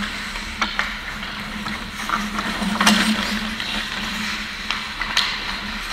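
Hockey skate blades scraping and carving on the ice, with sharp clacks of sticks and puck, the loudest about three seconds in, over a steady low hum from the rink.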